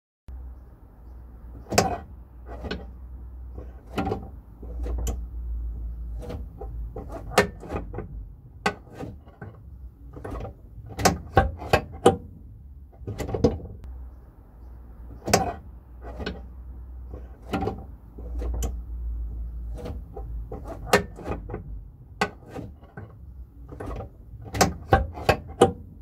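A VW T3/Vanagon's 025 Motorsport 711 gear shifter and its linkage being worked through the gears, giving sharp metal clicks and clunks, some single and some in quick runs, over a low steady rumble.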